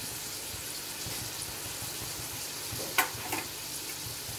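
Whole amla (Indian gooseberries) frying in sesame oil in a pan: a steady sizzle with fine crackling. About three seconds in come two sharp taps close together.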